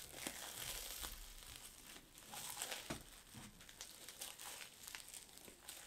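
A person biting into and chewing a flaky-pastry Cornish pasty, the pastry crunching in a quiet run of small crackles.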